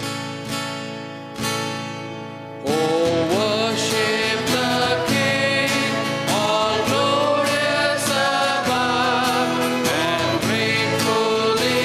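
Christian worship music: a guitar playing chords, then singing voices come in about three seconds in over the accompaniment.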